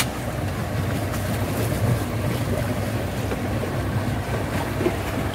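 A small boat's outboard motor running steadily under way, a low, even hum, with wind and water noise over it.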